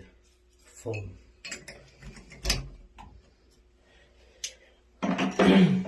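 Plastic and metal shower-faucet trim parts being handled, giving scattered clicks, knocks and light creaks, with a louder, denser rush of noise near the end.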